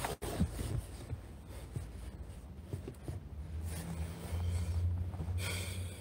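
Low steady hum of a car cabin, with a few faint knocks in the first two seconds and a short, noisy breath close to the microphone near the end.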